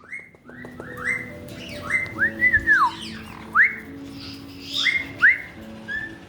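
Caique parrots whistling: a string of short rising whistle notes, one or two a second, with a longer whistle that rises and then falls about two and a half seconds in.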